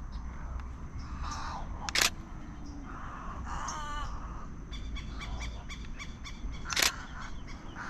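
Wild birds calling around a swamp: harsh, crow-like calls and a quick run of repeated chirps in the middle. Two sharp single clicks of a DSLR camera shutter, about 2 seconds and 7 seconds in, are the loudest sounds.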